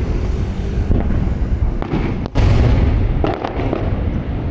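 Aerial fireworks shells bursting: a string of sharp bangs over a continuous rumble of booms, the loudest about two seconds in, then a quick run of smaller cracks.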